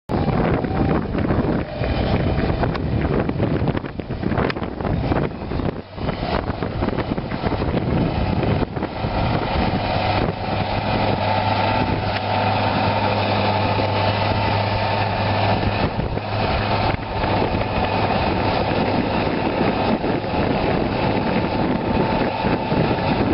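Heavy vehicle engine running loudly, with a steady droning hum in the middle stretch.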